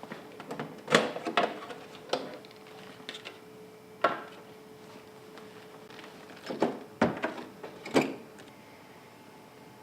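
A series of sharp clicks and knocks, like equipment being handled, over a faint steady hum that stops about four seconds in.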